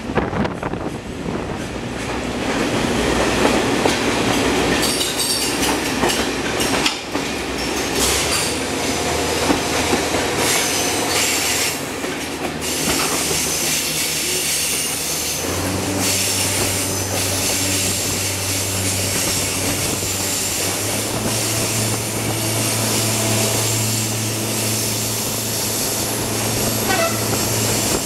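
X 2800 diesel railcar running along the track, heard from an open window: wheels rumbling on the rails with engine noise, and a steady low engine hum setting in about halfway.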